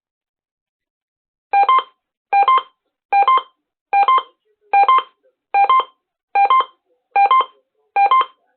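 Electronic alert beeps opening a radio station's Emergency Alert System weekly test: a short two-note tone repeated nine times, a bit under a second apart, starting about a second and a half in.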